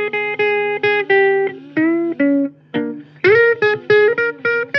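Guitar playing a run of single notes and two-note chords, with some notes bent upward in pitch, over a steady low hum.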